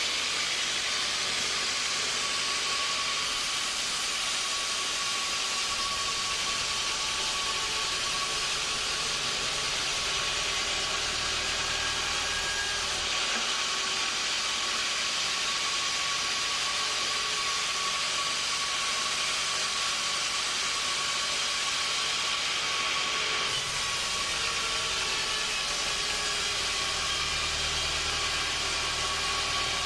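Sawmill machinery running steadily: an even hiss with a constant high whine, changing abruptly in character about every ten seconds.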